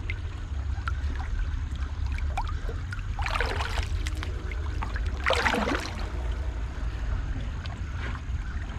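Creek water splashing and sloshing twice, about three and five seconds in, over a steady low rumble.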